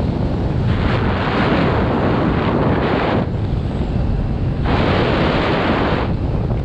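Loud, steady rush of wind buffeting a skydiver's camera microphone high above the ground. It swells twice into a brighter, hissier rush, about a second in and again near the end.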